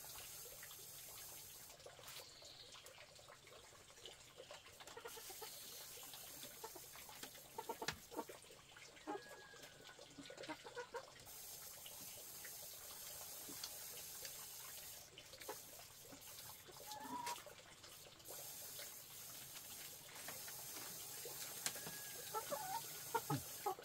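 Faint chickens clucking now and then, with short pitched calls about nine seconds in and again near the end, over a low even background noise and a few light knocks.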